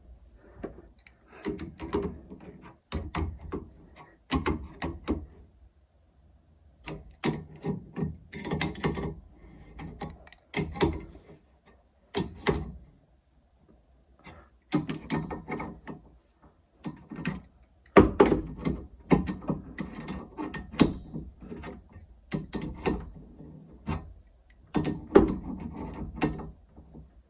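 Hand tools and metal fittings being worked during boiler pipework fitting: bursts of clunks, clicks and knocks with short pauses between them.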